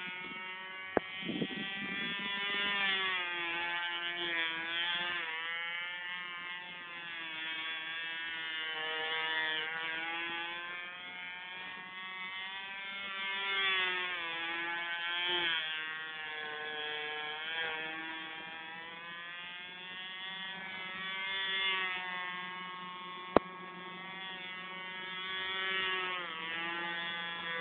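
Cox .049 glow engine of a control-line stunt model running flat out: a high buzz whose pitch and loudness rise and fall with each lap of roughly four seconds as the plane circles. A single sharp click about 23 seconds in.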